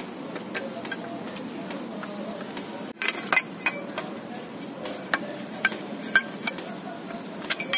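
Light metallic clicks and clinks of parts and hand tools being handled around the oil filter housing of a Mercedes OM651 engine, coming in small clusters over a steady background noise.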